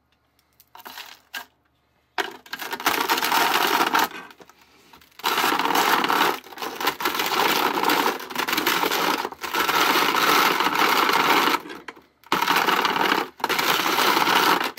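Plastic hand-cranked grinder of a 1993 Mattel McNugget Snack Maker toy, its crank turning the gears and crushing frosted cornflakes into crumbs: a loud grinding and crushing that starts about two seconds in, with a few short breaks.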